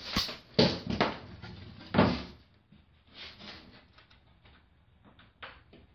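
Plywood boat pieces being handled and set in place: a few knocks and bumps of wood on wood, the loudest about two seconds in, then softer clatters.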